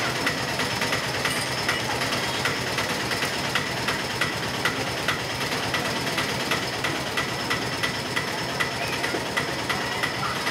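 Onion pakoda batter deep-frying in a large kadai of hot oil: a steady sizzle with frequent small, irregular crackles and pops.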